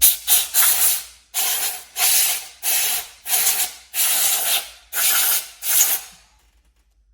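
Air blown in short, repeated hissing bursts, about nine in six seconds, to clear debris from the engine bay; the bursts stop about six seconds in.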